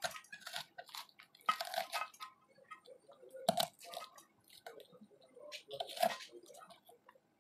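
Kitchen knife cutting into fresh green chillies on a wooden chopping board: irregular short, crisp crunching cuts, the loudest about three and a half and six seconds in.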